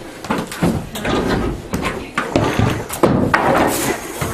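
A series of irregular heavy knocks and bangs from hammer blows on the building's walls during demolition, some with a cracking or rattling tail.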